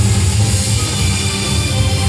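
Recorded music with a strong, steady bass, played loud.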